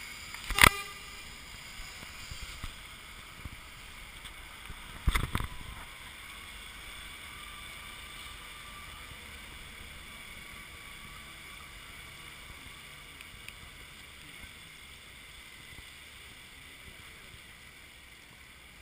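Steady outdoor background hiss with two sharp knocks, the first about a second in and a louder cluster about five seconds in.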